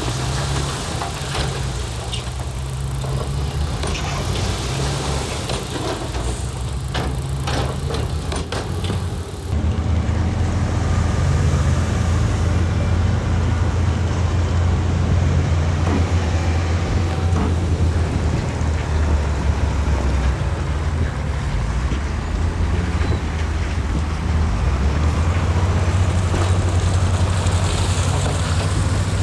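Heavy diesel machinery engine running steadily, with a run of sharp clanks and knocks about a third of the way in. The sound changes abruptly soon after, to a louder, deeper engine drone.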